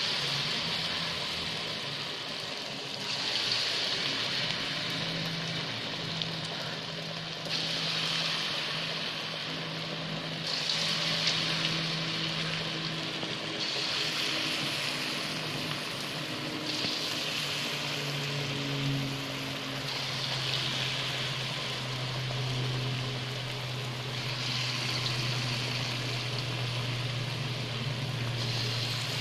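Moringa-leaf bondas deep-frying in hot oil: a continuous sizzle and bubbling that swells and eases every few seconds, with a steady low hum underneath.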